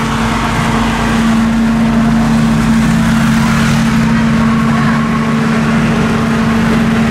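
An engine running steadily at an even pitch, a constant hum with no revving.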